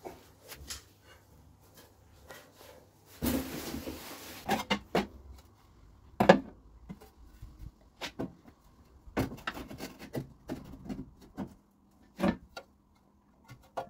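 Bubble wrap rustling as a radiator is unwrapped, then a string of separate knocks and clunks as the radiator is lowered into a Vauxhall Viva HC's engine bay and set against the front panel, the loudest about six seconds in.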